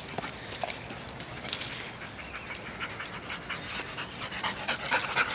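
A dog panting faintly, with small scattered clicks.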